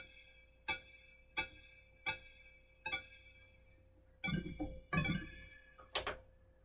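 Arturia MiniFreak synthesizer playing a run of short plucked notes, one about every 0.7 s, each dying away quickly. About four seconds in come two longer, fuller notes, then a brief noisy burst near the end, over a faint steady hum.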